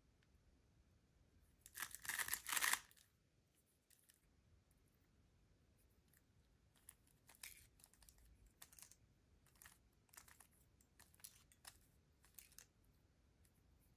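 Plastic 3x3 speed cube's layers being turned. A quick flurry of clicking comes about two seconds in, then a slower run of single clicks and clacks from about seven seconds in, one for each turn of a short algorithm.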